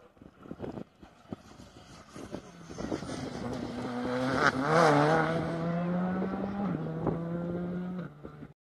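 Rally car engine growing louder as the car comes through a hairpin, loudest about halfway, then accelerating away with a rising note that steps down at a gear change.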